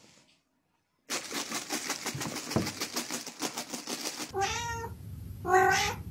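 A fast run of scratchy rasps lasting about three seconds, then a cat meows twice, the second meow louder.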